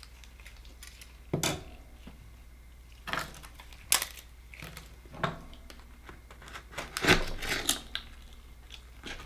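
Scattered clicks and knocks of an akoya oyster shell and metal tools being handled on a wooden cutting board, then a quick run of scraping and clicking near the end as a knife pries the shell open.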